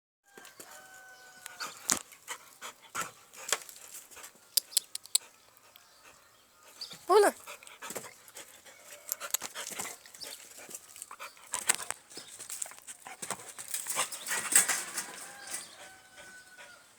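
A dog at play: scattered clicks, scuffles and rustling, with one loud, short cry from the dog about seven seconds in, the loudest sound.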